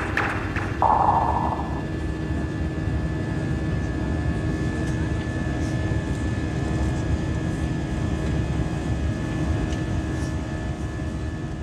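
Jet airliner cabin noise in flight, heard from inside the cabin: a steady low rush of engine and airflow with a thin steady whine above it, easing off near the end.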